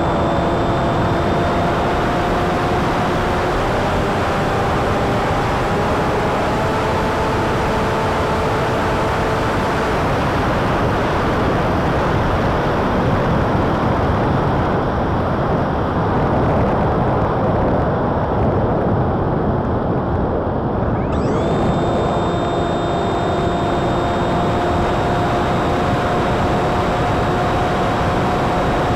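Airflow rushing over the onboard camera of an RC flying wing, with the steady whine of its Emax 2207 1900kv brushless motor turning a 7x6 folding prop. The whine drops out for about ten seconds from about a third of the way in, as the throttle is cut to glide, and comes back with a quick rise about three-quarters of the way through.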